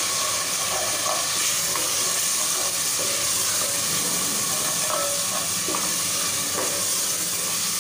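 Tomato-onion masala with freshly added ground spices frying in oil in an aluminium pot, stirred with a wooden spoon: a steady sizzle. The oil has begun to separate from the masala as it is fried (bhuna).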